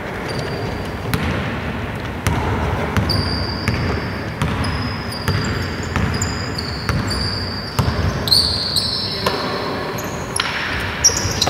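A basketball being dribbled on a hardwood court in a large hall, bouncing a little more than once a second. From about three seconds in, short high-pitched squeaks of sneaker soles on the floor join in, bunching together near the end.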